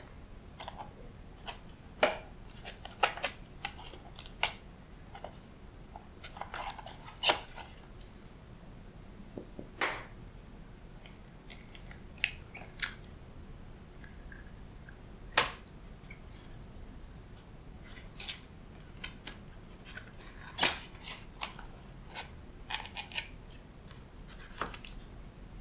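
Scattered sharp clicks, taps and short crinkles of a black plastic takeout food container and its lids being handled, with a raw egg being cracked open over a small plastic bowl.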